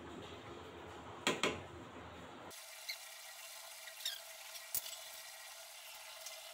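Mung dal simmering faintly in a wide karahi, with two quick knocks about a second in and a few light clicks later on.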